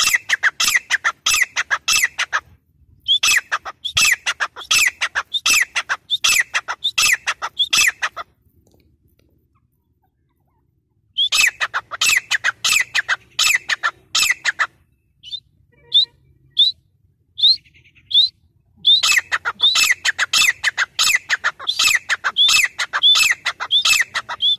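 Grey francolin calling: loud, rapid runs of repeated high notes in several bouts. A near-silent pause of a few seconds falls in the middle, and a handful of spaced single notes come before the final run.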